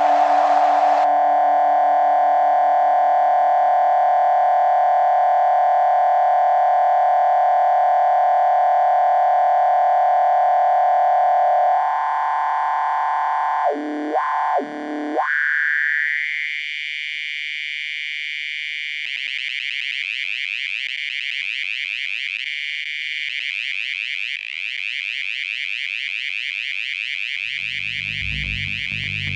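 Electronic synthesizer music: a held drone that swoops sharply down and back up twice about halfway through, then glides up into a higher, brighter tone that starts warbling rapidly. Deep low notes come in near the end.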